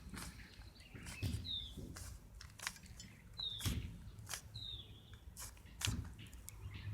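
Plastic 3x3 Rubik's Cube being turned by hand through an algorithm: a quick, irregular run of layer-turn clicks and clacks. Short, high, falling chirps come in every second or two over a low steady hum.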